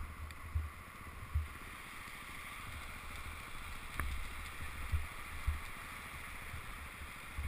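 Swollen creek rushing past as a steady hiss, with irregular low thumps on the microphone and one sharp click about four seconds in.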